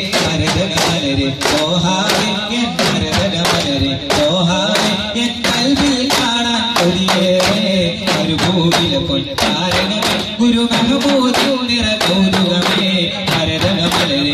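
Daff frame drums struck in a quick, steady rhythm, several beats a second, under a singing voice carrying the melody.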